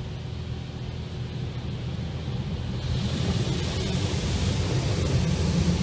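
Rinse water from a brushless car wash spraying over the car's windshield and body, heard from inside the car: a steady hiss over a low rumble, the spray getting louder about three seconds in.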